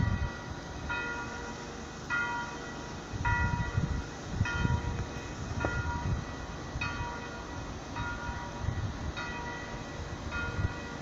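Railway warning bell ringing in a steady rhythm, about one ring every second, over intermittent low rumbling from the train.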